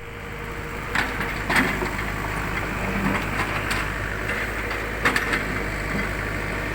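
Roadworks machinery engine running steadily, with several sharp knocks about one, one and a half, three and a half, and five seconds in.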